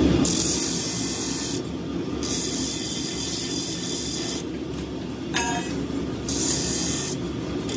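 Steel trowel blade pressed against a spinning abrasive disc, giving a hissing, rasping grind in three bouts as the blade is applied and lifted, over the steady hum of the machine's motor.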